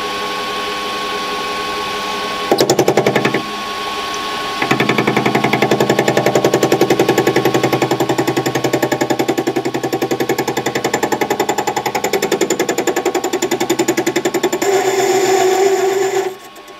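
Warco WM180 mini lathe running at low speed while a parting blade plunges into a spinning flywheel blank, the cut making a fast, even pulsing. The pulsing comes briefly about two and a half seconds in, then runs from about four and a half seconds and cuts off suddenly near the end.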